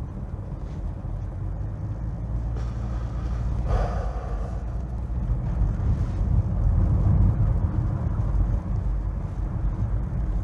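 Steady low rumble of a car running, with a brief brighter noise about four seconds in.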